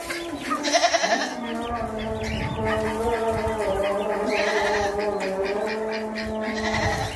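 Goats bleating in wavering, drawn-out calls over a steady low tone.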